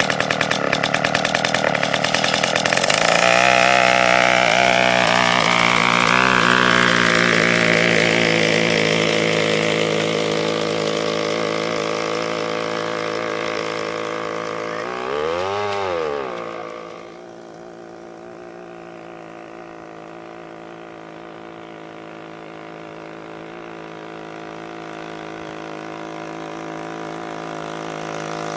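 A 53 cc two-stroke chainsaw engine driving a go-kart, revving up and climbing in pitch as the kart pulls away, then running at speed. About fifteen seconds in its pitch swells and falls once, after which it is fainter and grows slowly louder again near the end.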